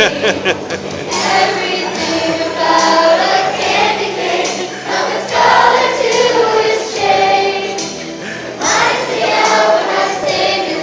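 Children's choir singing a song over musical accompaniment.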